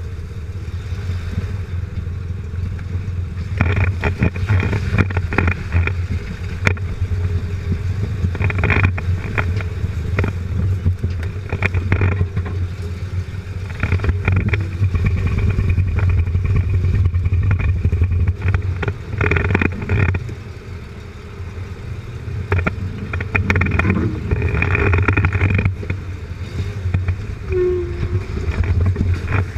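A Jeep Cherokee XJ crawling along a rough trail, heard from beneath the vehicle: a steady low engine and drivetrain drone with frequent knocks and clatter from the tyres and running gear working over sticks and stones.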